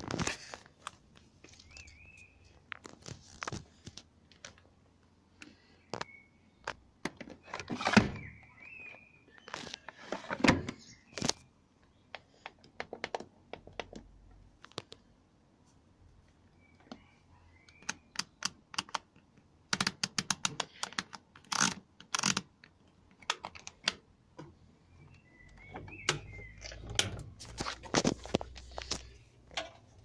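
Scattered clicks, knocks and light scrapes of an old front-loading washing machine being handled at its control panel and drum, with a quick run of clicks about two-thirds through.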